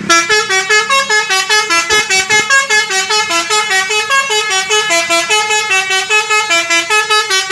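Bus 'telolet' multi-tone musical horn playing a fast melody of short horn notes, several notes a second, without a break.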